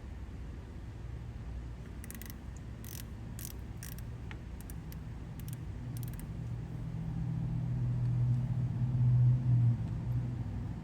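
Precision Matthews lathe running under a facing cut across a pipe flange, a steady low hum with a few light ticks in the first half. The hum grows louder over the second half of the cut and eases near the end.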